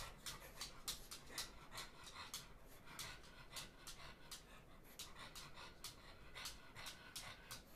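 Pug panting faintly in short, quick breaths, several a second.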